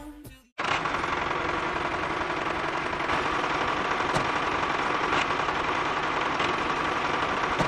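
Small motor of a homemade mini tractor running steadily with a fast, even rattle. It starts abruptly about half a second in.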